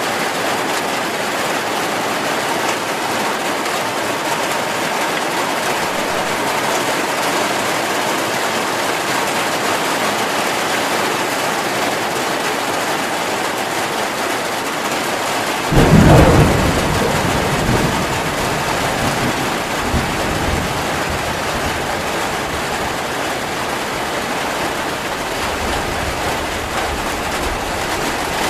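Steady heavy rain. About halfway through, thunder breaks out suddenly as a loud low rumble that dies away over a few seconds, with fainter rumbles after it.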